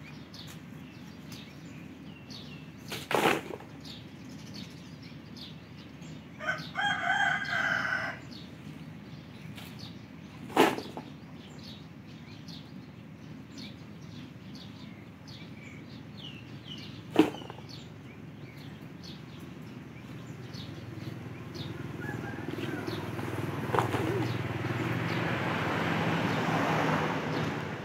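A rooster crows once about seven seconds in, over scattered small-bird chirps. Three sharp knocks come at intervals, and a rushing noise swells in over the last few seconds.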